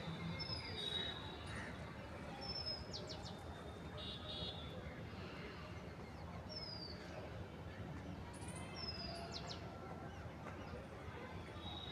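Birds chirping: a few short, high whistled notes that slide downward, heard every few seconds along with a couple of sharp clicks, over a steady low rumble of background noise.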